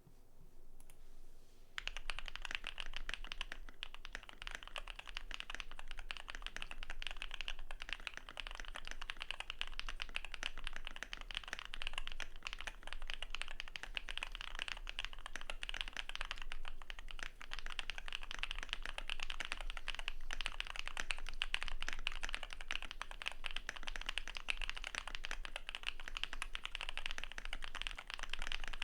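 Continuous fast typing on a Keychron Q6 full-size mechanical keyboard with lubed BSUN Raw switches, greased stabilizers, a steel plate, PBT doubleshot keycaps and foam and tape damping mods: a dense stream of key clacks that starts about two seconds in.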